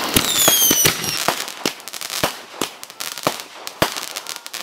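Fireworks going off: an irregular string of sharp bangs and pops, with several high falling whistles in the first second, where it is loudest.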